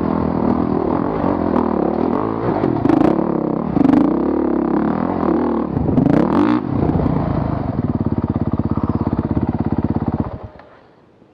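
Honda CRF450RX's single-cylinder four-stroke engine revving up and down under load on a rocky dirt climb, with a few sharp knocks. It then settles into an even idle and shuts off about ten seconds in.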